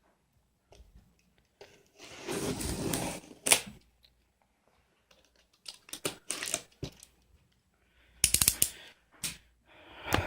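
Cardboard printer box being opened with a cutter: a scraping stretch of the blade slitting packing tape, then clicks, taps and knocks of cardboard flaps and packing being handled.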